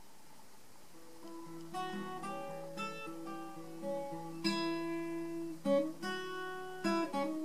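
Steel-string acoustic guitar played solo: separate picked notes and chords over a held low bass note, beginning about a second in.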